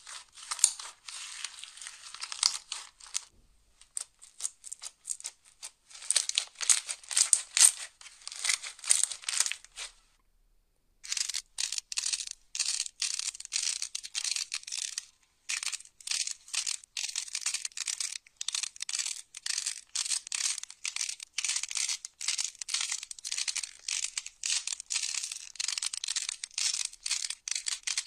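Hands kneading, pressing and stretching slime, giving a dense, crackly run of small crinkling clicks. The sound drops out briefly about ten seconds in, then carries on.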